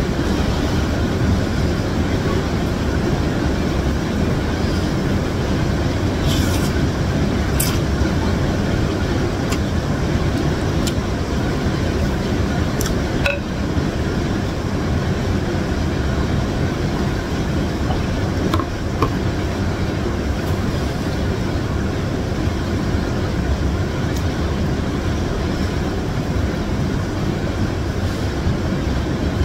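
Steady low rumble, like distant road traffic, runs under a noodle meal. A few sharp clinks of the wooden spoon and fork or a glass mug against the ceramic bowl stand out, a couple in the first third and one near the middle.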